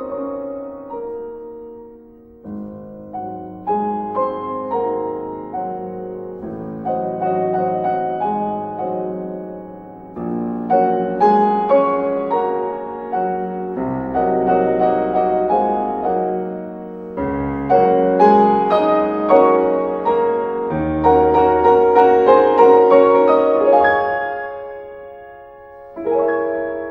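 Classical solo piano music, struck notes ringing and fading in phrases that swell and ebb.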